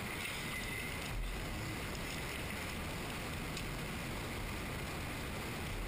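Steady background hiss of shop room tone, with a faint knock about a second in and a light tick later.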